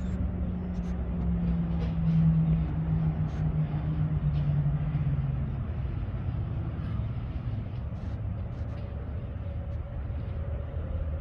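Low steady engine hum with a faint tone that eases slightly down in pitch over the first half, with a few light clicks and taps.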